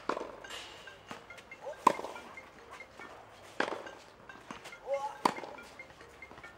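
Tennis balls struck by rackets in a baseline rally on a clay court: four sharp hits about every one and three-quarter seconds, louder and quieter ones alternating as the ball goes back and forth.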